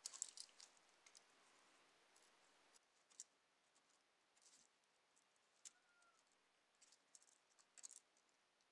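Faint, short scratchy clicks of a snap-off utility knife blade cutting into masking tape, in scattered strokes with a cluster just after the start and another near the end.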